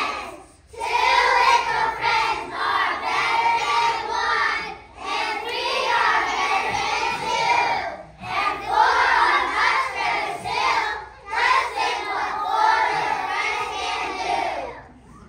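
A group of young children singing together in unison. The song comes in phrases with short breaths between them, and the singing stops near the end.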